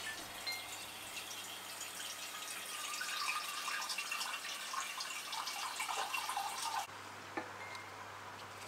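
Water running from a tap and splashing into a sink, then stopping suddenly about seven seconds in.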